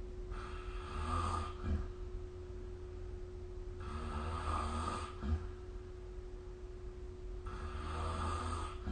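A sleeping person snoring: three snores about three and a half seconds apart, each ending in a short sharp click.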